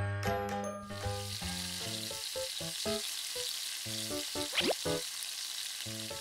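Light background music of short plucked notes over a steady sizzling hiss that comes in about a second in, with a short rising whistle about halfway through.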